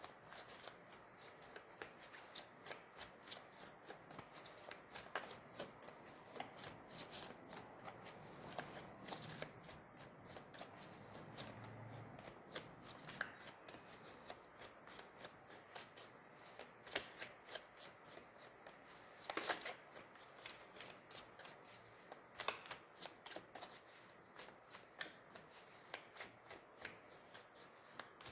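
A deck of tarot cards being shuffled by hand: a faint, steady run of quick card flicks and slides, with a few sharper snaps along the way.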